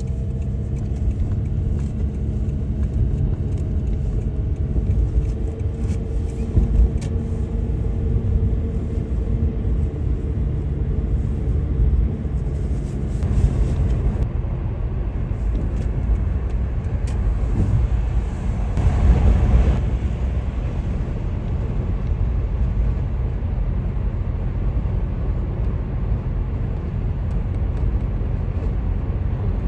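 Car driving: a steady, loud low rumble of road and engine noise, with a slight swell about two-thirds of the way through.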